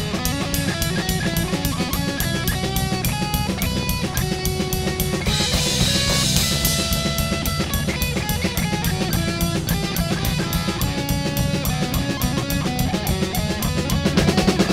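Rock band playing an instrumental passage: electric guitar and bass guitar over a drum kit keeping a fast, steady beat on the cymbals and bass drum, with a cymbal crash about five seconds in.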